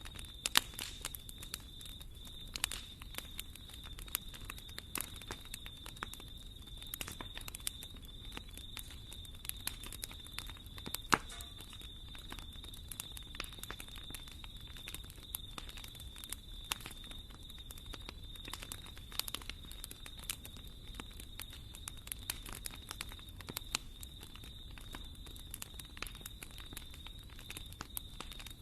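Wood fire in a fireplace crackling, with irregular sharp pops and snaps over a soft steady hiss of burning; a faint steady high-pitched tone runs underneath.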